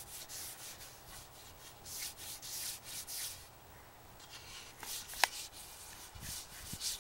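Bare, oiled hand rubbing boiled linseed oil into a wooden walking stick: a series of short rubbing strokes of skin along the wood. One sharp click about five seconds in.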